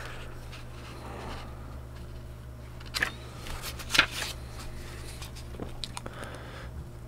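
Paper handling as glossy booklet pages are turned: soft rustling with a few sharp crinkles, the loudest about four seconds in. A steady low electrical hum runs underneath.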